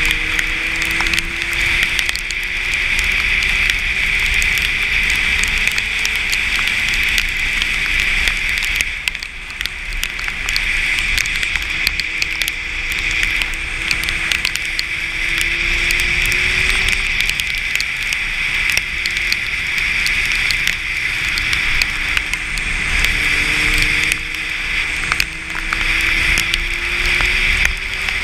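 Inline-four sport bike riding on a wet road: a steady hiss of tyre spray and wind dominates, with the engine underneath climbing slowly in pitch three times and dropping back each time as it shifts up.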